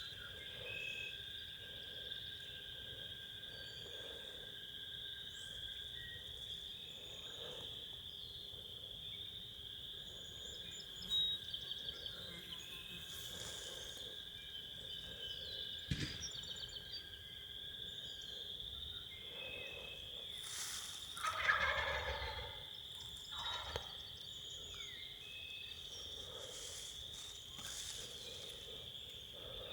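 Wild turkey toms gobbling several times, short rattling calls with the loudest a little past the middle, over a steady high-pitched background hum.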